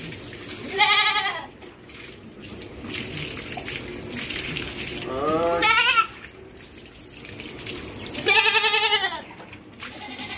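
A goat bleating three times, each a wavering call of about a second; the second call slides up in pitch.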